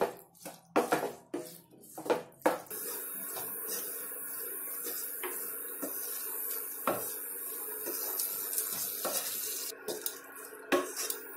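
Capsicum and onion masala sizzling in a hot nonstick kadai with a splash of water added, while a wooden spatula stirs it, scraping and knocking against the pan. A few sharp knocks in the first couple of seconds, then a steady sizzle with occasional taps of the spatula.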